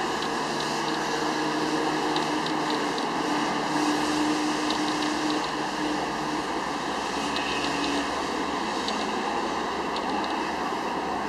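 Sigma 18-250 lens's autofocus motor whirring with a faint hum and scattered small ticks while focusing, recorded by the Sony A55 camera body. Under it runs a steady rushing background noise.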